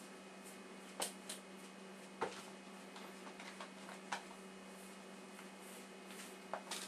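Quiet room tone: a steady low hum with a few faint, scattered clicks and taps.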